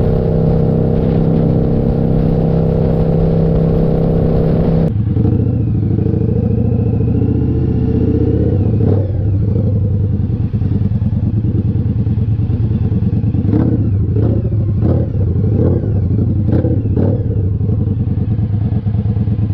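Indian Scout Sixty's V-twin engine and exhaust while riding: a steady drone at constant highway speed for about five seconds, then, after a sudden change, a lower, uneven engine note at low speed with brief revs rising and falling and scattered sharp knocks.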